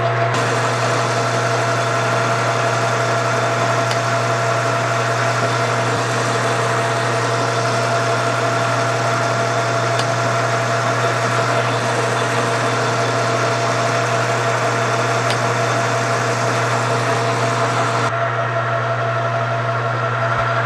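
Metal lathe running steadily with a constant hum while the bore of a spinning aluminium part is cut out. The higher cutting hiss drops away about eighteen seconds in, leaving the lathe's hum.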